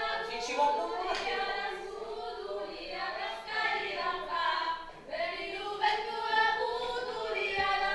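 Several young voices, mostly female, singing a song together without accompaniment, with a short break in the phrase about five seconds in.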